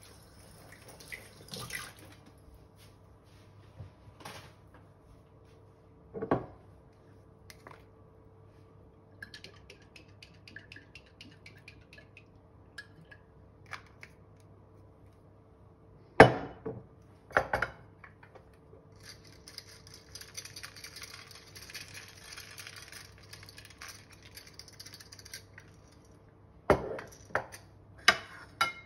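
Kitchen handling sounds: scattered knocks and clinks of glass, the loudest pairs about two-thirds of the way in and near the end, with several seconds of light rustling in between as pine nuts are added to a glass bowl of broccoli. A faint steady hum runs underneath.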